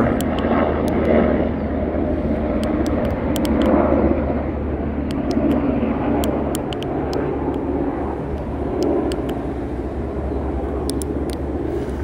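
Steady low background rumble with a faint hum, like an engine or traffic, and a scatter of faint, sharp clicks.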